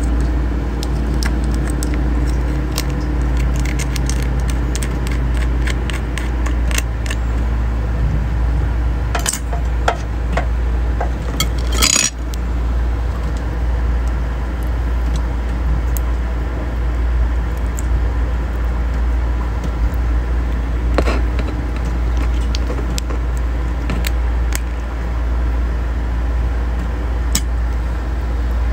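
A steady low hum, with scattered small clicks and cracks of raw freshwater crab shells being pulled apart by hand and a utensil tapping a plate. A sharper clatter comes about twelve seconds in.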